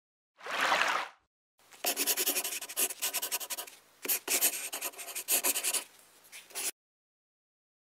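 A short swish, then about five seconds of pen scratching across paper in quick strokes and short runs: a handwriting sound effect.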